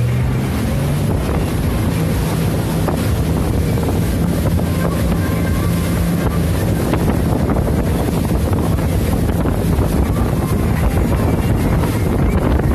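Speedboat engine running steadily at speed, rising slightly in pitch just after the start, with heavy wind buffeting the microphone and water rushing past the hull.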